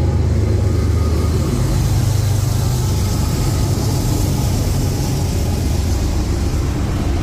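Diesel freight locomotives passing close by. A deep engine drone is strongest for about the first second and a half, then gives way to a steady rumble of wheels on rail with a hiss.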